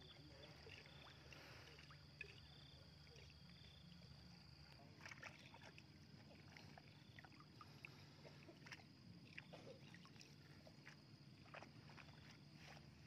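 Faint water splashing and dripping as a cast net is hauled in hand over hand and gathered up out of shallow pond water, with small splashes coming more often from about five seconds in. A faint steady hum runs underneath.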